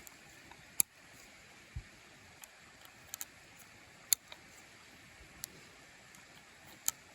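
A handful of sharp, metallic clicks at irregular intervals of a second or so, one of them a quick double click: .22 Magnum cartridges being loaded one by one through the loading gate of a Heritage Rough Rider single-action revolver on half cock, with the cylinder turned by hand between rounds.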